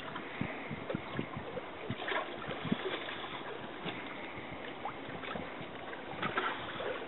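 Choppy lake water lapping and slapping against the side of a small boat: a steady wash with irregular small knocks.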